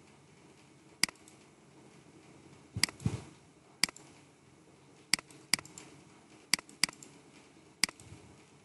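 Computer mouse buttons clicking about eight times at uneven intervals, some in quick pairs, with one louder cluster of clicks about three seconds in, over faint room hiss.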